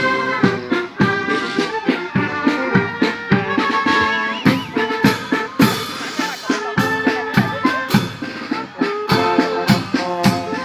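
A marching band playing a march live: brass carrying the tune over a steady bass drum and percussion beat.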